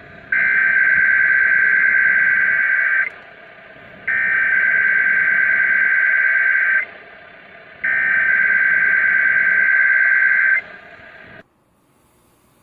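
NOAA Weather Radio SAME header: three identical bursts of warbling digital data tones, each about two and a half seconds long with a second's gap between, over a steady receiver hiss. This coded header opens the weekly test broadcast. The hiss cuts off suddenly near the end.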